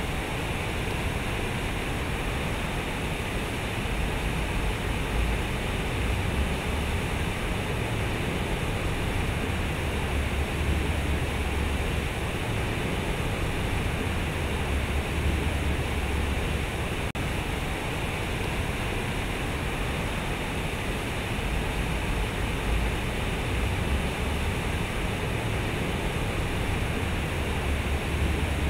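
Water from a large sculptural fountain (San Francisco's Vaillancourt Fountain) pouring from its concrete tubes and splashing into the pool: a steady rushing noise.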